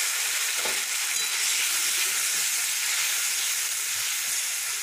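Tomato paste sizzling steadily in hot oil in a steel kadai, the moisture spitting and hissing on the hot metal, easing off a little near the end.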